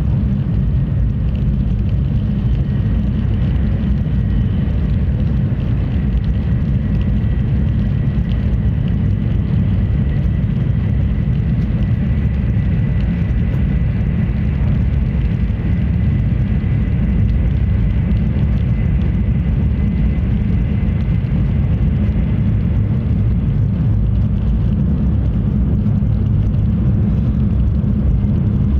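Tohoku Shinkansen train running at speed, heard from inside the passenger car: a steady, even low rumble with a faint high tone over it.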